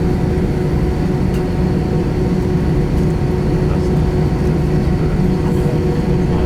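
Steady loud rumble inside the cabin of an Airbus A320, from its IAE V2500 turbofan engines and airframe, with a steady hum tone over it.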